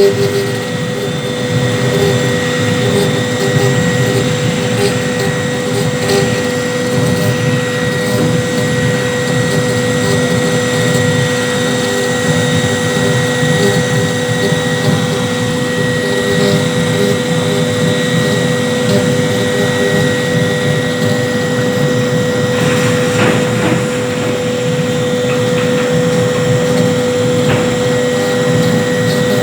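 CNC router running steadily, its spindle giving a constant whine over a noisy mechanical hum.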